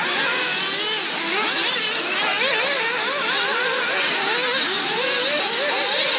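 Several nitro RC cars racing at once, their small two-stroke glow engines revving up and down over one another in a steady, wavering buzz.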